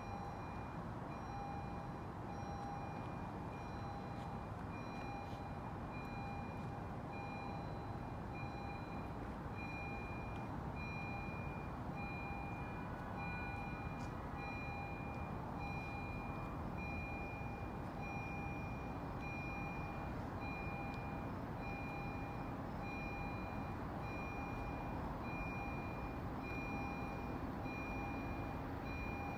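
A railroad bell ringing steadily, about one strike a second, over a low rumble from a freight train approaching in the distance.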